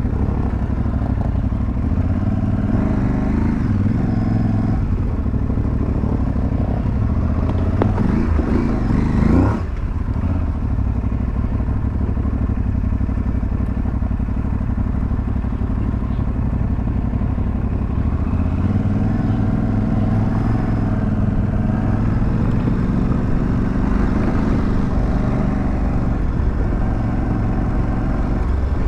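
Aprilia Tuareg 660's parallel-twin engine running on a dirt track, its revs rising and falling through the gears. There is a louder surge of revs that cuts back sharply about nine seconds in.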